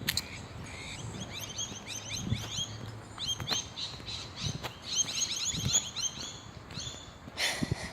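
Small birds chirping with many quick, short notes overlapping one another, with soft footsteps thudding about once a second underneath.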